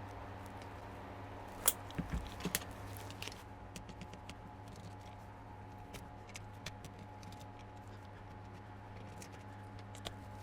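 Light clicks and taps of small plastic parts being handled, a cluster of them about two seconds in and a few more scattered later, over a steady low hum.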